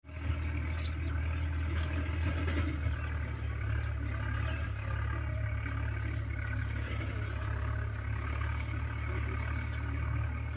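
Steady low rumble with a faint hum over it, like a motor or engine running, with a few faint clicks.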